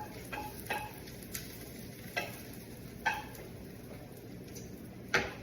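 Onions frying in olive oil and clarified butter with a steady low sizzle, cooked nearly translucent, while a utensil stirs them and knocks against the pan a few times at uneven intervals.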